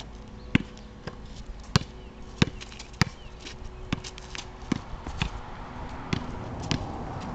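A basketball being dribbled on an asphalt driveway: a string of sharp, separate bounces, about one to two a second and unevenly spaced.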